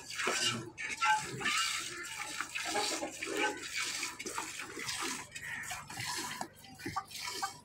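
Cow being milked by hand: streams of milk squirting into a steel pail, a continuous splashing hiss broken into quick strokes.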